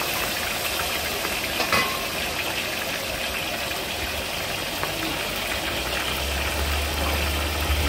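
Two whole fish deep-frying in a wok of hot oil: a steady sizzling hiss, with a brief metallic clink about two seconds in from the ladle on the wok. A low rumble swells in about six seconds in.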